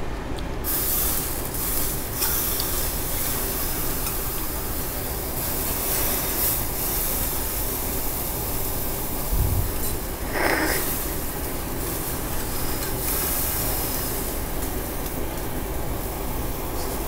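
Meat sizzling on a gas-fired yakiniku tabletop grill: a steady hiss that starts abruptly.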